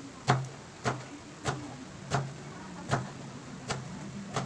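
Kitchen knife slicing bundled sweet potato tops (kamote leaves and stems) on a wooden cutting board, each stroke a crisp knock of the blade on the board. There are about seven even strokes, roughly one every two-thirds of a second.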